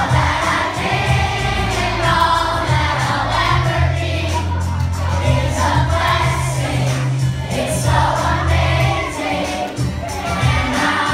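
Song with a strong bass line playing over loudspeakers, with a large crowd of children singing along to the chorus.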